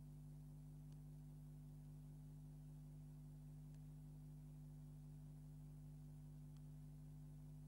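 Near silence: a faint, steady electrical hum with light hiss and a few very faint ticks.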